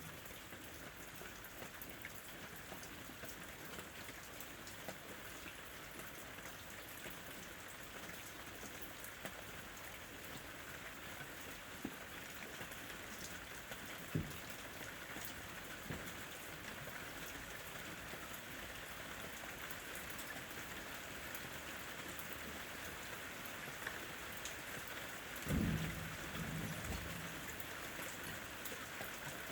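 Steady summer rain falling, with the ticks of individual drops scattered through it. A sharper low thud comes about halfway through, and a brief low rumble, the loudest moment, comes near the end.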